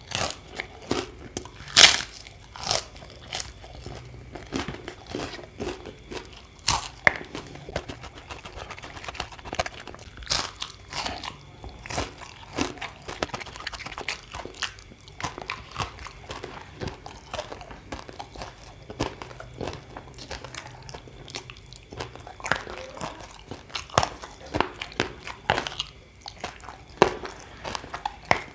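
A person eating close to the microphone: crisp, crunchy bites of raw vegetables and crackers. There are sharp crunches about every second between softer chewing.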